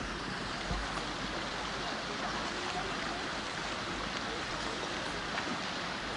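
Steady rush of flowing water, an even hiss with no distinct events.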